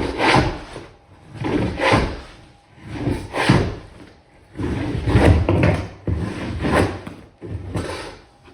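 Glued-down commercial carpet being scraped and torn up from the floor with a roofing shingle pry tool: rough scraping strokes about every second and a half, six in all.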